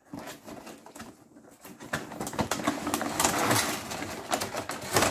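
Cardboard box and its inner cardboard packaging being handled and opened by hand: scraping and rustling with many light knocks, busier in the second half.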